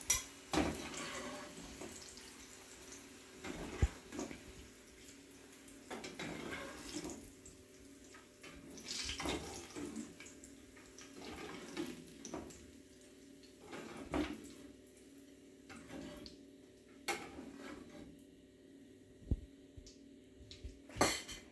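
Tap water splashing in short bouts, as when rinsing something at a sink. A steady low hum runs underneath, and there is a sharp knock about four seconds in.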